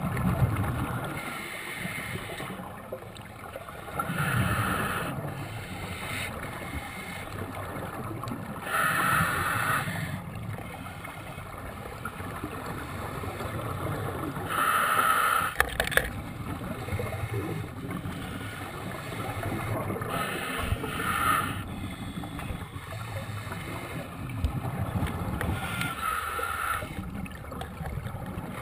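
Open-circuit scuba regulator breathing underwater: five breath cycles about five or six seconds apart, each a short hiss followed by the rumble of exhaled bubbles.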